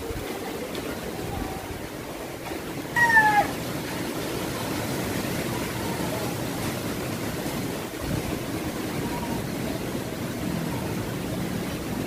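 Steady rush of strong typhoon wind. About three seconds in comes one short, loud, high-pitched cry that falls slightly in pitch.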